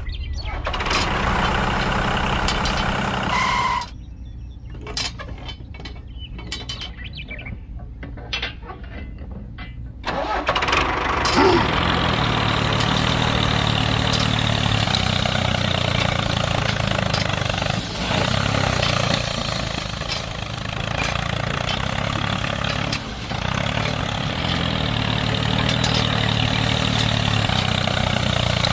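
Vehicle engine running, cutting off about four seconds in; a few seconds of quieter clicking follow, then an engine starts about ten seconds in and runs steadily.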